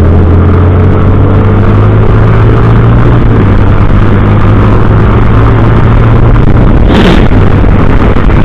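Motorcycle engine running at a steady speed while riding, a low even tone under loud rushing noise. A short burst of noise about seven seconds in.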